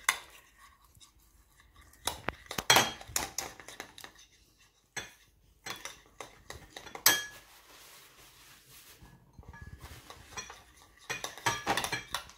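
Metal spoon stirring a thick cocoa paste in a glass bowl, clinking and scraping against the glass in short spells with quiet pauses, including one sharp clink about seven seconds in and a run of clinks near the end.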